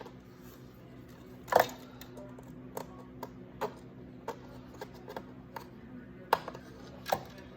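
Irregular clicks and light knocks of a plastic zip tie and wiring being handled and hooked into a slot, with louder knocks about one and a half seconds in and just past six seconds. A faint steady hum runs underneath.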